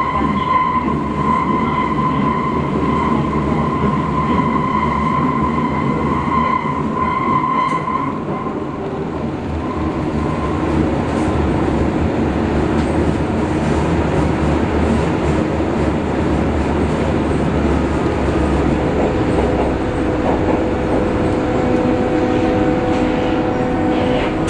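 BVG A3L92 U-Bahn train running through a tunnel, heard from inside the car: a steady rumble of wheels on rail with a steady high whine that fades out about eight seconds in. Near the end a lower whine sets in.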